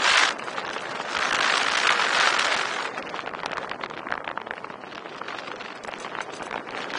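Wind rushing and buffeting over the microphone at the high airspeed of a paramotor's spiral descent, swelling about a second in and easing off after about three seconds.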